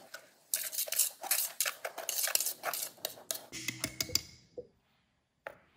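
Wire whisk stirring a dry sugar, cornstarch and spice mix in a speckled enamelware pot, its wires scraping and clicking against the enamel in rapid, irregular strokes. The strokes run for about three seconds, then stop.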